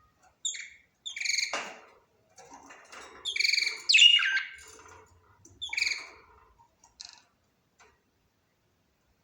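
Budgerigar chirping: several short, high chirps in little groups, the loudest a warbling call about four seconds in.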